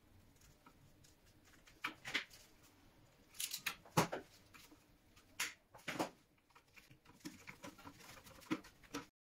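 Faint, irregular clicks, taps and rustles of stiff insulated wires being handled and pressed against a plastic enclosure and the screw terminals of modular circuit breakers, with a screwdriver working at the terminals. The sound cuts off abruptly just before the end.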